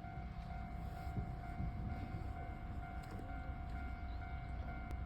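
Japanese railway level-crossing warning alarm ringing as a steady, high tone with overtones, over a low rumble.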